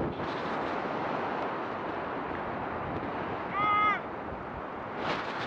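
Shallow surf washing in, a steady hiss, with one short high-pitched call about three and a half seconds in.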